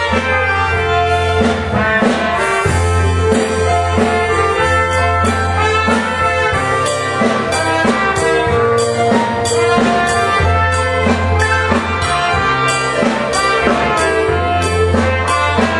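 Live band playing an instrumental passage of a Konkani song, with horns over steady bass notes and a regular drum beat.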